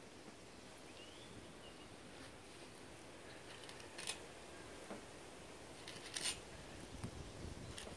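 A few faint, short snips from about four seconds in, as leaves are cut into small pieces, over a quiet outdoor background.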